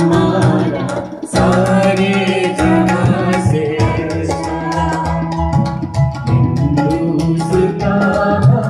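Live Indian song accompaniment: tabla strokes over sustained electronic keyboard chords, with a man and a woman singing into microphones. The music dips briefly about a second in, then picks up again.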